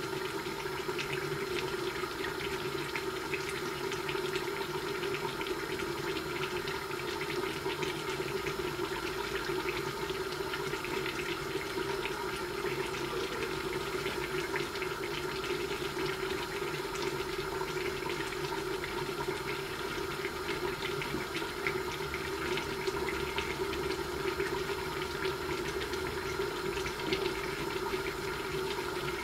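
Steady rushing of a lit gas burner under a covered iron karahi, with fine sizzling and crackling from the food cooking inside.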